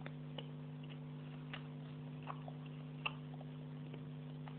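A steady low hum with scattered faint clicks and ticks, the loudest about three seconds in.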